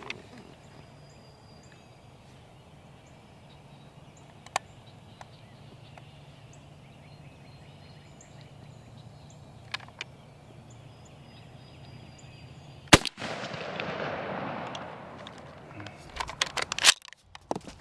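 A single 20-gauge shotgun shot about thirteen seconds in, its echo rolling away for a second or two, fired as a test shot at a patterning target after a scope adjustment. Small clicks come before it, and a rapid run of sharp clicks and knocks follows near the end.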